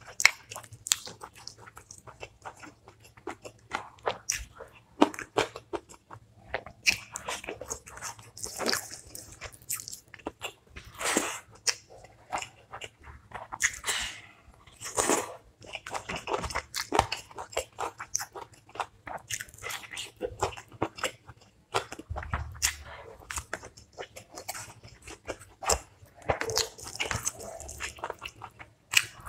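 A person eating a chicken curry and rice meal close to the microphone: chewing with crisp, crunchy bites and many irregular sharp mouth clicks.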